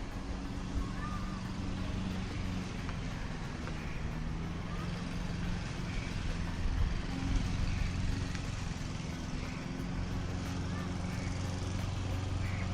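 Steady low engine hum of motor traffic, with indistinct voices in the background.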